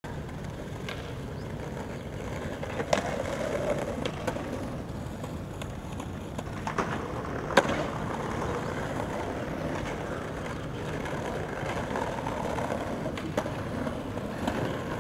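Skateboard wheels rolling over pavement with a steady rumble, broken by a handful of sharp board clacks and impacts, the loudest a little past halfway.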